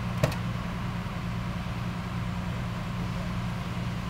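Fire truck engine running in a steady low drone, with one short sharp click just after the start.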